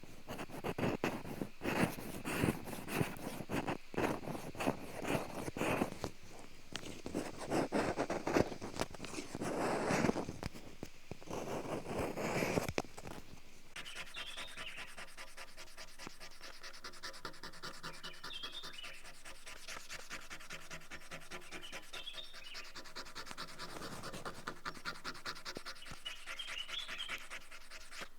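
Close rubbing and scraping in repeated bursts of strokes, louder for about the first half. It then gives way to a softer, steady scratching, with a few faint bird chirps in the second half.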